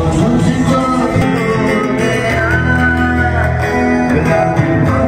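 Music: a song with guitar and singing.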